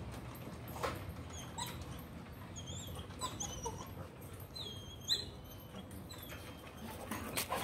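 Puppies whimpering: a scattered series of short, high-pitched whines.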